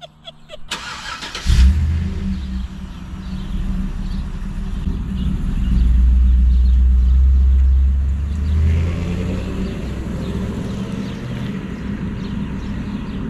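A vehicle engine cranks briefly and starts about a second and a half in, then runs steadily, louder for a few seconds in the middle before settling.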